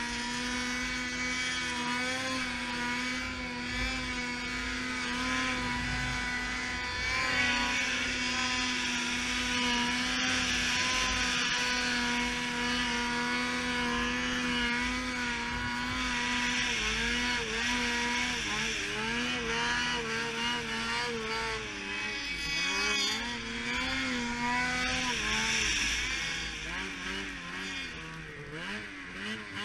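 Snowmobile engine running under power through deep snow, holding a steady pitch for about the first half, then rising and falling repeatedly as the throttle is worked in the second half.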